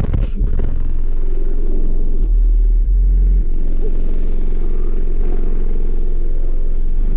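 Six 18-inch Sundown ZV5 subwoofers in a car system playing very deep, loud bass. The bass is strongest for about a second in the middle.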